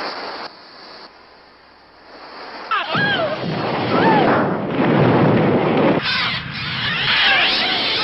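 A sudden blast about three seconds in as the spilled gasoline ignites and the cars catch fire, followed by a loud, dense rushing noise of the fire. Shrill bird screeches, sliding up and down in pitch, sound over it, and again near the end.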